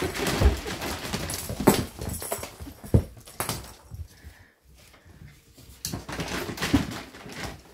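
English springer spaniel puppies playing: scrabbling and scuffling on a wooden floor, with several sharp knocks in the first few seconds. It goes quieter about halfway through, then the scuffling picks up again.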